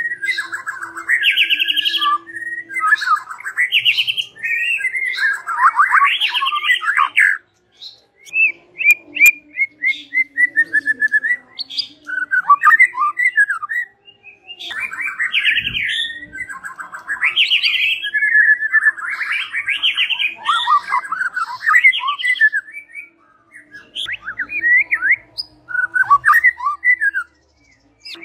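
White-rumped shama (murai batu) singing long, varied phrases of rapid trills and whistled notes, with a few short pauses between bursts.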